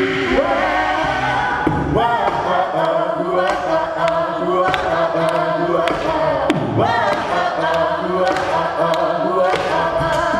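An a cappella group of male and female voices singing in harmony through microphones, with sharp percussive clicks laid over the chords.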